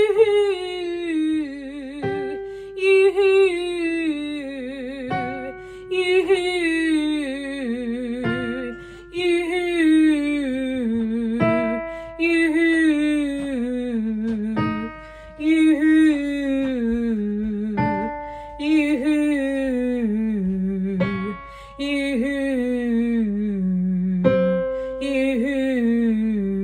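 A woman sings a head-voice 'yoo-hoo' slide about nine times, each one gliding downward with vibrato and starting a step lower than the last, to keep the light head-voice placement on the way down. Each slide is cued by a short keyboard note.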